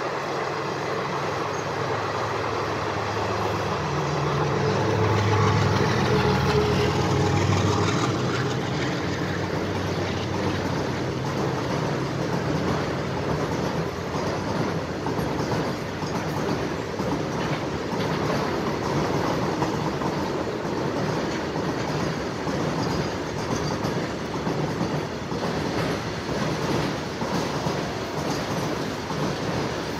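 Goods train running past at speed: a loud drone swells and peaks around six seconds in, then a long steady rumble of wagons with the clickety-clack of wheels over rail joints.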